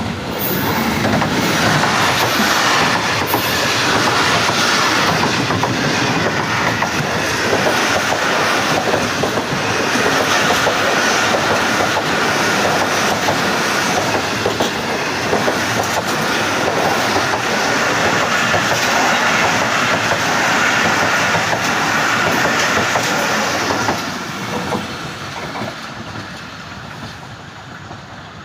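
Train passing close by, its wheels running over the rails in a loud, steady rush that starts at once and drops away over the last few seconds as the train clears.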